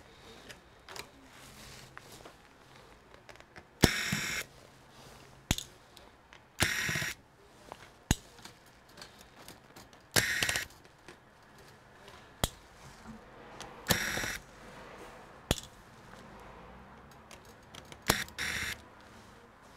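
Handheld electric screwdriver whirring in five short bursts of about half a second each, driving out screws on a laptop motherboard, with light clicks of metal and plastic in between.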